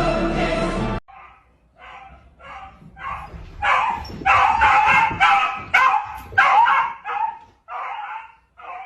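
A dog barking over and over, about a dozen short, high-pitched barks roughly every half second, loudest in the middle. Music plays for the first second and cuts off abruptly.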